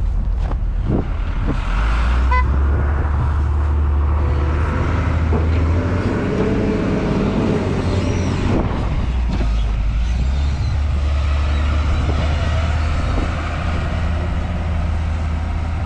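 Case wheel loader's diesel engine working as the loader drives its bucket into a snow-covered stockpile and backs away. It is a steady, loud, low engine rumble that swells and eases with the load.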